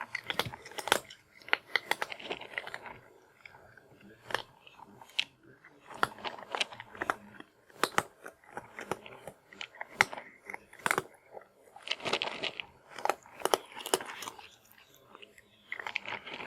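A cat eating dry kibble: sharp, irregular crunches in bouts as it bites and chews the pieces, with short pauses between mouthfuls.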